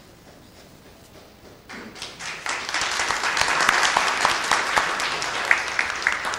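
Audience applauding, starting about two seconds in and easing off near the end.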